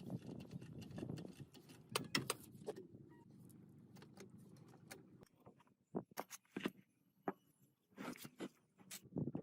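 Scattered metallic clicks and clinks of parts or tools being handled, over a low rumble that dies away about five seconds in.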